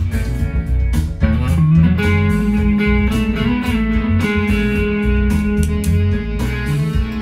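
Fender Stratocaster electric guitar playing an improvised lead line in the Mixolydian mode, single notes with some held, sustained notes.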